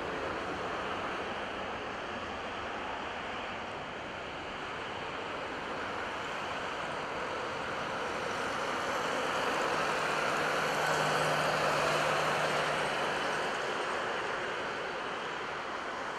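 Jet engines of a twin-engine widebody airliner at takeoff thrust during the takeoff roll: a steady rush of jet noise that swells to its loudest about ten to twelve seconds in, with a low hum joining for a few seconds then.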